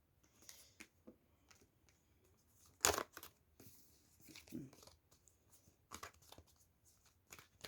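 Tarot cards being handled: scattered soft clicks and rustles of cards, with one louder sharp rustle about three seconds in.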